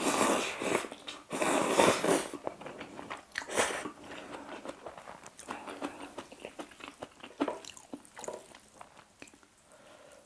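Close-miked slurping of thin seafood aglio e olio noodles, with a few loud slurps in the first four seconds, then quieter wet chewing.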